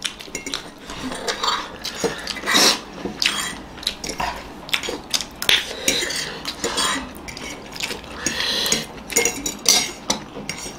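Metal forks clinking and scraping against plates as people eat noodles, a string of irregular short clicks and scrapes.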